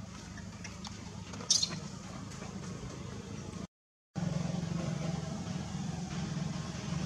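Steady low hum of outdoor background noise, like a distant engine, with one short, sharp, high-pitched sound about a second and a half in. The sound cuts out completely for a moment a little before halfway and comes back louder.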